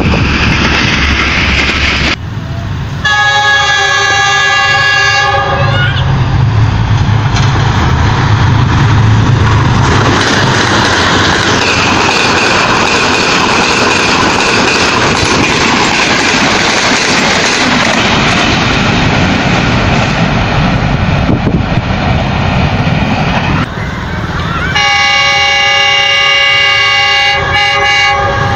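Passenger train running along the rails, heard from inside the carriage, with a steady rumble of wheels on track and a thin high whine for several seconds midway. The locomotive's horn sounds twice: a chord of several tones held for about two and a half seconds near the start, and again near the end.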